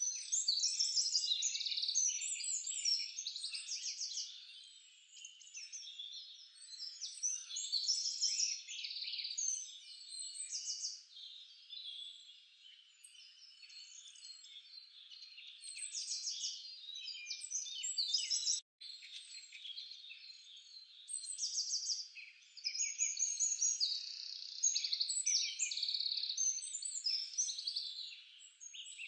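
A dense chorus of high-pitched chirping and trilling animal calls, swelling and fading in waves, with a brief sudden gap about two-thirds of the way through.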